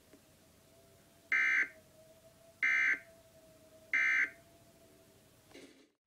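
Emergency Alert System end-of-message tones, heard over a radio's speaker: three short screechy digital data bursts, evenly spaced about a second and a quarter apart. They signal the end of the alert.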